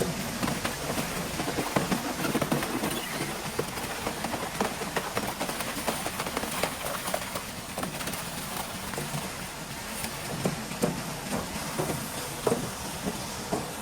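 Twin-shaft shredder tearing up old refrigerators: irregular crunching and cracking of metal and plastic over the steady noise of the machine.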